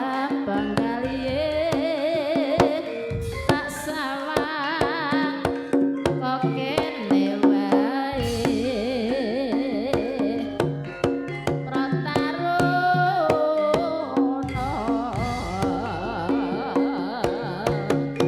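Campursari band playing: a singer with strong vibrato over Javanese kendang hand drums and steady accompaniment.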